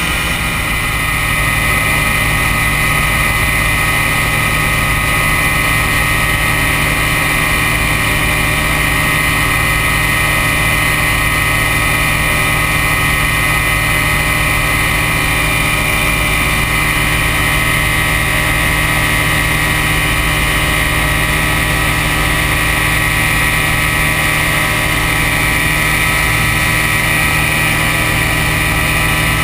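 Ultralight aircraft's engine and propeller running steadily in level cruise flight, heard from the open cockpit.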